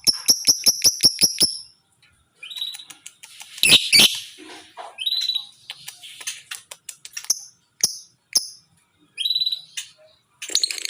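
Lovebird calling: a fast run of sharp, high chirps for the first second and a half, then scattered short shrill calls with one louder squawk about four seconds in.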